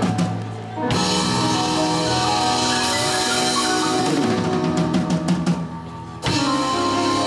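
Live band of drum kit, electric guitar, electric bass and keyboard playing. Twice the band drops back briefly, about half a second in and again near six seconds, then all come back in together.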